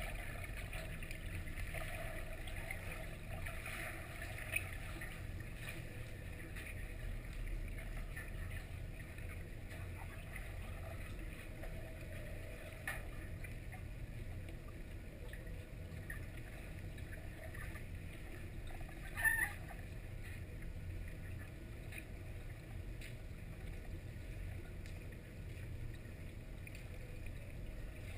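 Underwater ambience of a swimming pool: a steady low rumble with a faint haze above it, a small click about four seconds in and a brief sharper sound about nineteen seconds in.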